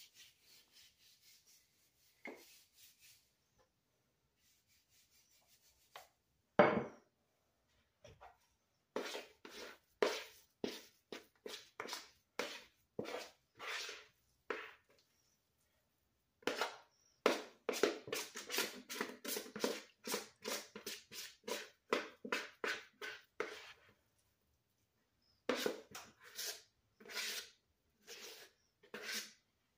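Thick dog-treat dough being scraped out of a plastic mixing bowl onto a floured countertop: runs of short scraping strokes, two or three a second, in three bursts, with a single knock about seven seconds in.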